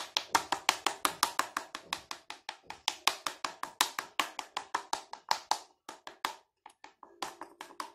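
A fork pricking pizza dough, its tines tapping through to the metal dish beneath in a rapid run of sharp clicks, about five or six a second, that thin out near the end.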